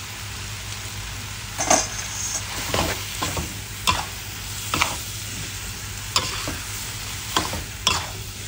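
Metal spatula scraping and knocking against a wok while stir-frying glass noodles with pork belly and bamboo shoots, the food sizzling in the pan. About eight sharp, irregular scrapes over a steady low hum.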